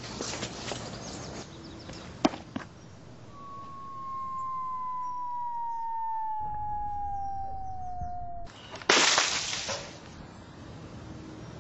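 A few sharp knocks. Then a whistle-like tone slides slowly down in pitch for about five seconds and stops, followed by a sudden loud crash that dies away within a second.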